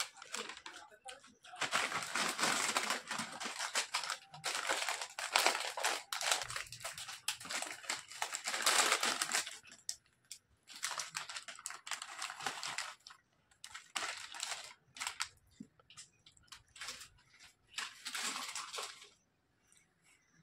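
Crinkling of plastic potato chip packets being handled, shaken and emptied, in long rustling bursts for the first half and shorter separate bursts later.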